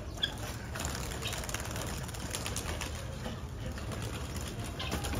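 Pigeons cooing and fluttering their wings over a steady low background rumble.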